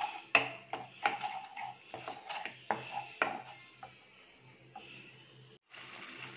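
A spatula scraping and knocking in a non-stick frying pan as a thick curd masala is stirred. There are about eight quick strokes in the first three and a half seconds, then it goes quieter.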